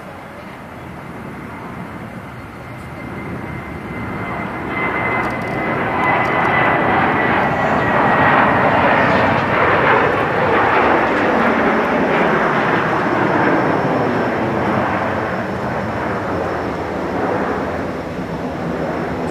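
Boeing 737-700's CFM56-7B turbofan engines at takeoff thrust: the jet noise grows louder as the airliner rolls and lifts off, is loudest about halfway through as it passes, then fades slowly as it climbs away. A high fan whine drops slightly in pitch as the jet goes by.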